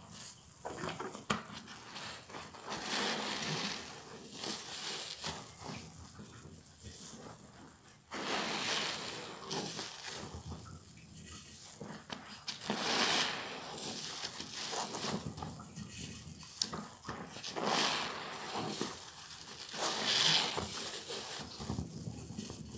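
Soap-soaked sponges being squeezed and kneaded by hand in thick suds: wet squelching and fizzing foam, in repeated swells every couple of seconds.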